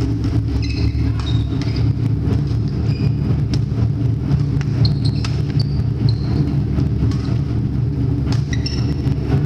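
Badminton rally: sharp racket strikes on the shuttlecock and short high-pitched shoe squeaks on the wooden court floor, over a steady low rumble of the hall.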